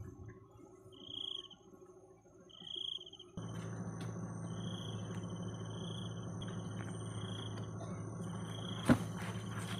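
Crickets chirping in short pulsed trills, repeating every second or so and running almost continuously later, over a steady high-pitched insect drone. A low steady hum comes in suddenly about three seconds in, and a single sharp knock sounds near the end.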